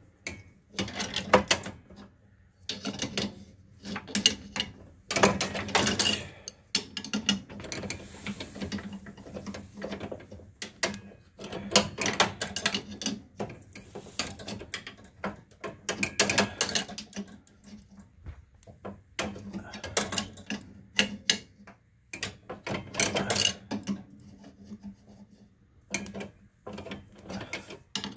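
Ratchet wrench clicking in repeated bursts while tightening the nut back onto the snowblower's oil drain spout, metal on metal, over a faint steady hum.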